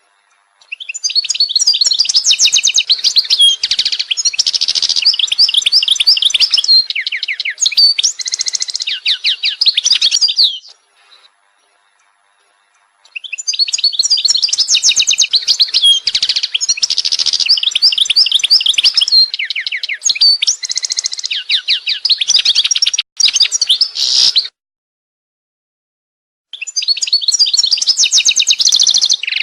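Songbird singing a long run of rapid chirps and trills, in stretches of about ten seconds broken by two short gaps of complete silence; the stretches look alike, as from a repeated birdsong recording.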